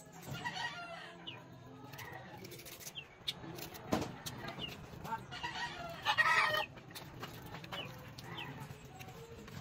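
Free-ranging chickens clucking on and off, with a rooster crowing once about six seconds in, the loudest call.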